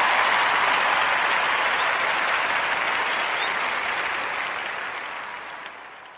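Crowd applause, a dense even clapping that slowly fades away over the last couple of seconds.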